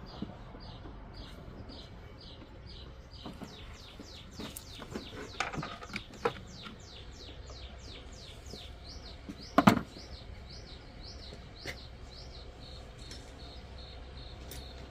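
A bird singing a long run of short repeated chirps, about three a second, the notes changing to quick downward slurs partway through. A few sharp knocks stand out, the loudest about ten seconds in.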